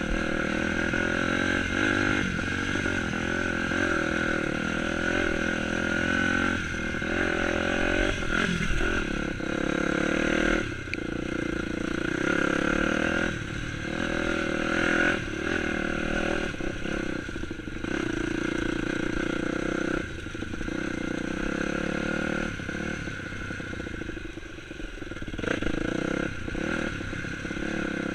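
Dirt bike engine running on a trail ride, the throttle rolling off and back on several times.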